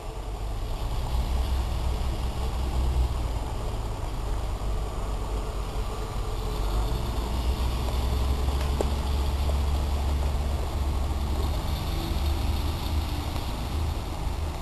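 Diesel multiple unit's engines running with a steady low drone as the train stands at the platform.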